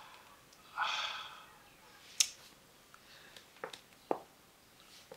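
Quiet room with a few sharp clicks, the loudest just after two seconds in, and a short soft hiss about a second in.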